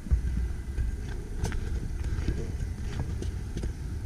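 Footsteps on a rocky, stony path at a walking pace, sharp crunches a little more than one a second, over a steady low rumble of wind on the microphone.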